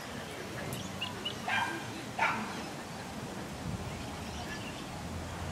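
A dog barking twice in quick succession, about a second and a half in, the second bark louder.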